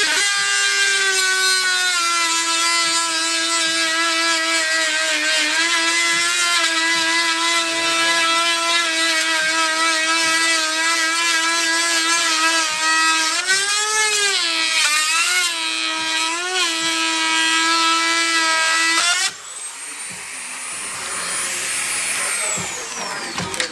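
Handheld corded rotary tool running at high speed with a steady high-pitched whine as it cuts a plastic car grille, its pitch sagging a few times as the bit bites into the plastic. It is switched off about nineteen seconds in.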